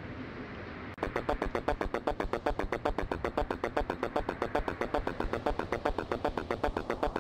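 Rapid, even pulsing at about eight pulses a second, cutting in abruptly about a second in over a low rumbling noise: the opening sound of an album track.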